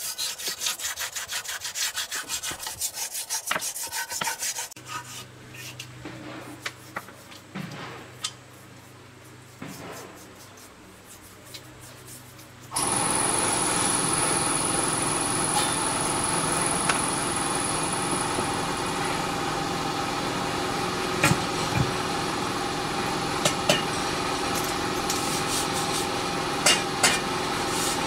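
Quick rhythmic scraping strokes, about three a second, for the first few seconds, then quieter scattered scrapes over a low hum. About halfway in, steady machine noise cuts in sharply, with a high whine over its first several seconds and scattered clicks.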